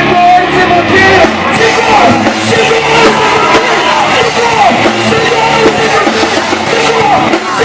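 Old-school punk band playing live: loud distorted guitars, bass and drums, with shouted vocals.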